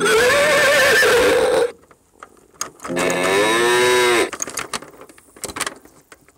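Chicco toy train's sound module playing a recorded cow mooing through its small speaker, two long calls, the second falling in pitch, followed by a few light clicks.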